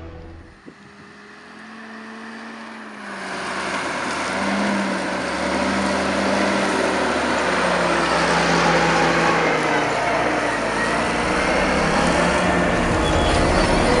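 John Deere 8295R tractor's six-cylinder diesel working under load as it pulls a ten-furrow Lemken reversible plough, growing louder a few seconds in and then running steadily.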